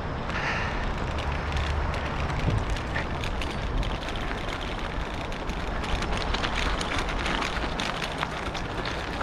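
Bicycle tyres rolling over a dirt and gravel trail: a steady crunching hiss dense with small ticks of stones, over a low rumble.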